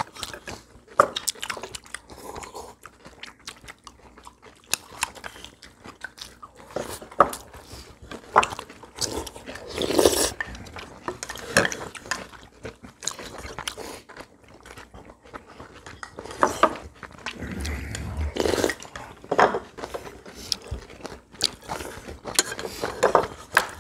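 People eating at a table: chewing and crunching, with chopsticks and spoons clicking irregularly against porcelain bowls.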